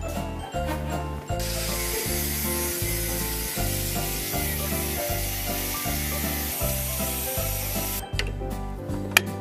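Angle grinder cutting into a steel pipe held in a vise, a steady grinding from about a second and a half in until about eight seconds: the feed hole being cut into the machine's barrel pipe. A few sharp clicks follow near the end, over background music with a steady beat.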